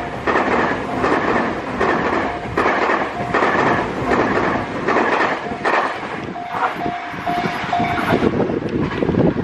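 Electric commuter train running past at speed, its wheels clattering rhythmically over the rail joints. The level crossing's warning bell rings through the noise and comes out clearer in the last few seconds.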